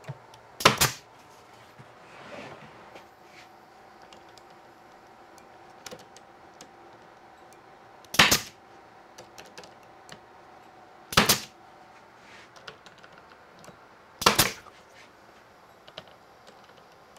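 Pneumatic nail gun firing four sharp shots, spread several seconds apart, driving nails through a plywood cabinet top into its glued rabbets.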